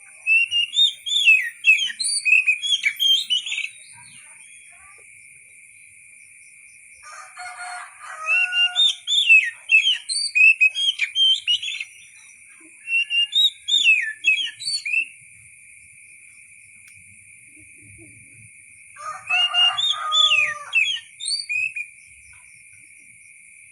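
Oriental magpie-robin (kacer) singing in four bursts of rapid, varied whistled phrases, with pauses of a few seconds between them. A steady high-pitched hum runs underneath.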